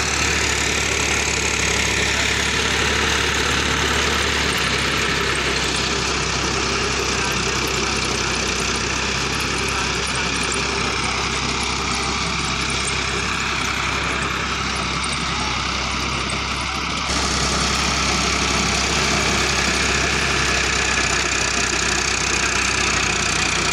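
Farmtrac tractor's diesel engine running steadily under load, driving a soil-loading machine that digs earth and throws it into a trailer, with a continuous rushing of flung soil over the engine. The sound shifts abruptly about four seconds in and again near seventeen seconds.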